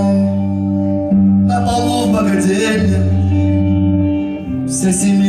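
Live rock band playing a slow song: steady held chords under guitar, with a man's voice singing a line about a second and a half in.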